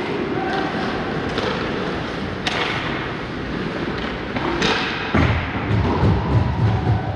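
Ice hockey play echoing around an indoor rink: sharp cracks of sticks and pucks, about two and a half and four and a half seconds in, over the steady hum and scraping of the rink. A deeper rumble joins about five seconds in.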